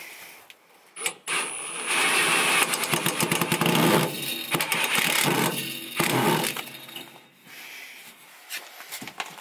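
Metal clicking, rattling and scraping as a diesel heater's small muffler is worked onto the end of its flexible corrugated stainless exhaust pipe. One sharp click about a second in, then dense rattling for about five seconds that dies away into a few scattered clicks.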